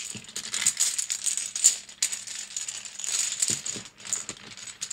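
Dominoes shaken together in a quick, continuous clattering rattle, swelling in bursts, as a few tiles are shaken out to be drawn.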